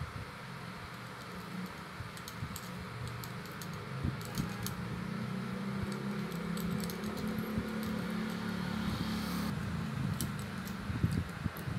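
Metal wire clicking and scraping as galvanized and aluminium wire is twisted and wrapped by hand: scattered light metallic ticks, over a steady low hum.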